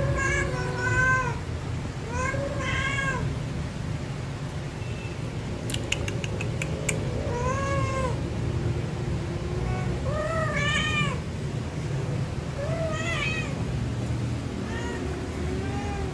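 Female Persian cat in heat calling: about six drawn-out meows, each rising then falling in pitch, a second or two apart.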